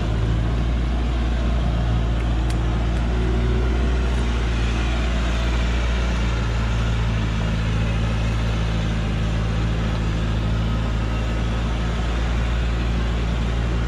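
Old Hoa Mai truck's engine running steadily under a heavy load of acacia logs as it pulls up a steep, rocky dirt slope.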